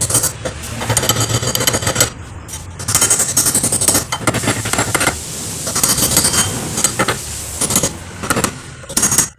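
Repeated metal-on-metal tapping and scraping from tools working the steel lock-washer tabs on a motorcycle's rear sprocket bolts, bending them over to lock the bolts.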